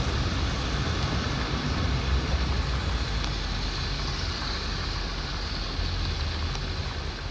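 Road noise heard from inside a moving car: a steady low rumble of engine and tyres under an even hiss, slowly easing off.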